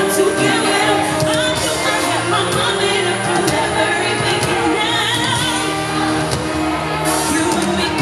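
Live pop music played loud over a concert PA, with female vocals singing over a full band backing, heard from the audience.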